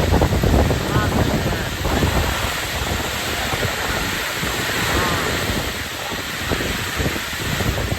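Heavy rain pouring down steadily, with wind buffeting the microphone.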